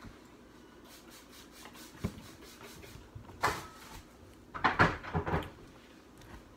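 Light knocks and taps of small objects handled on a tabletop, with one brief rustle. The loudest is a quick cluster of knocks about five seconds in.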